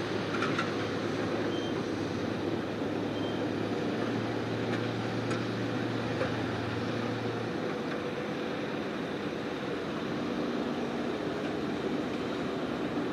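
Heavy earthmoving machinery running steadily, a continuous diesel engine noise with a low hum that drops away about seven seconds in.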